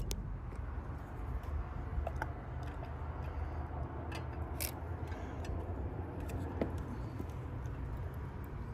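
A few light clicks and taps of a metal thermostat housing and a screwdriver being handled, over a low steady hum.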